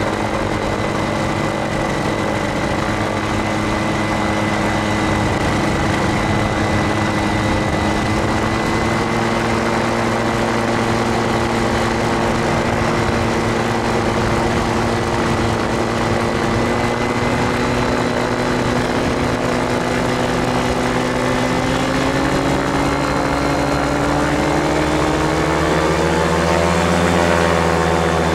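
Gyrocopter's engine and pusher propeller running hard while rolling fast along a runway, heard from a camera on the landing-gear leg with a heavy rush of wind noise. The engine pitch climbs gradually over the last several seconds and wavers near the end.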